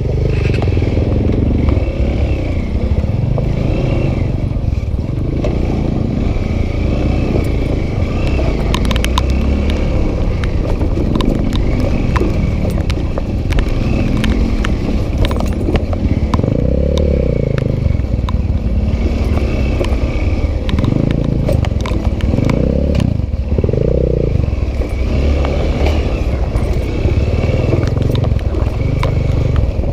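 Single-cylinder dirt bike engine running, swelling in revs a few times, with scattered clicks and clatter.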